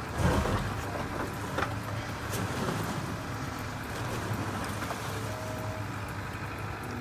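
A heavy machine's engine running steadily, with wind noise on the microphone and a couple of short knocks.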